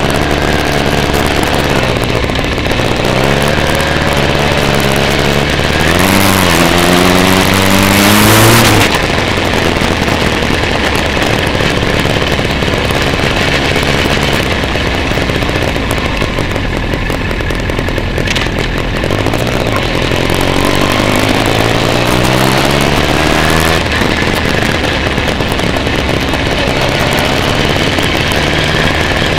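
Motorcycle engine running under the rider's onboard camera. It pulls up through the revs twice, about three and about nineteen seconds in, each time dropping back as the throttle eases, with a louder rush of noise at the first peak.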